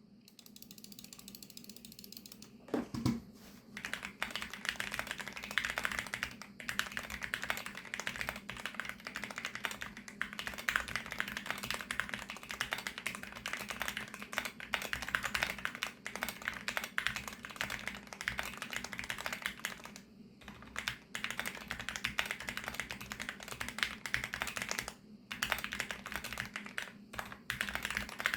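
Rapid, continuous typing on a VARO V68+ 65% mechanical keyboard with factory-lubricated VARO Panda linear switches. A dull thump comes about three seconds in, then steady keystrokes follow, broken by a couple of brief pauses.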